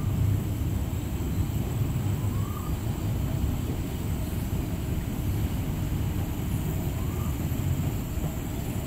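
Steady low background rumble with a faint high steady hiss above it, unchanging throughout.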